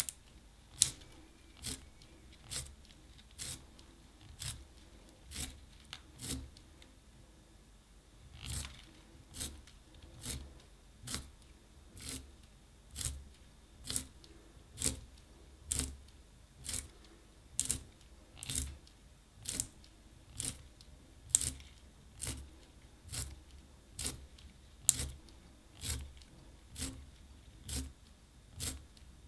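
A wooden pencil being turned in a small plastic handheld sharpener, its blade shaving the wood in crisp scraping strokes about once a second. There is a short pause about six seconds in.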